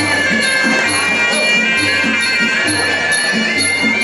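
Muay Thai ringside music: the Javanese oboe (pi java) plays a wailing, sliding melody over a steady rhythm of drum beats and small ching cymbals.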